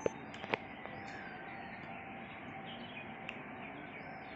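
Small birds chirping over a steady outdoor hiss, with two sharp clicks within the first second and a fainter one about three seconds in.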